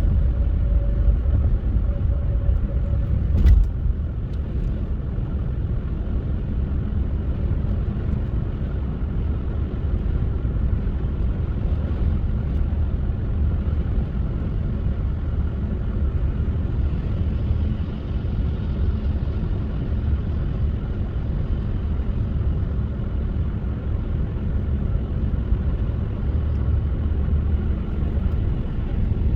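Car driving: a steady low rumble of tyres and engine, with one sharp knock about three and a half seconds in.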